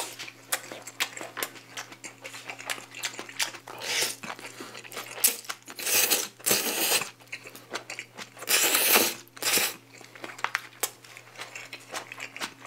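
Close-miked eating: chewing and wet mouth clicks, with three long, loud slurps of japchae glass noodles spread through.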